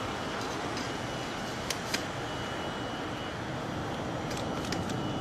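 Chikuho Electric Railway 2000-series electric car No. 2003 rolling slowly into a station: a steady running rumble with a thin high tone, and a few sharp clicks, two about two seconds in and several more near the end.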